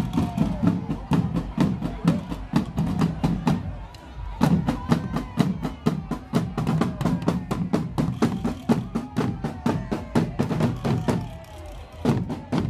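Parade drum corps beating marching drums with sticks: fast, dense strokes in a steady march rhythm, dropping off briefly about four seconds in and again near the end.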